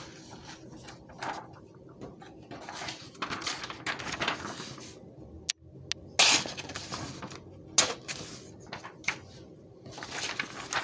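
Pocket knife blade slicing through printer paper: a run of dry, rasping swishes, the loudest about six seconds in and again at about eight seconds. A single sharp click comes shortly before the loudest cut.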